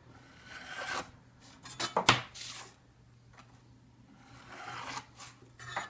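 Steel burnisher drawn along the edge of a steel cabinet scraper in three strokes, each a rising metallic rub, with sharp clinks about a second and two seconds in and again near the end. The strokes turn the edge over into the cutting hook.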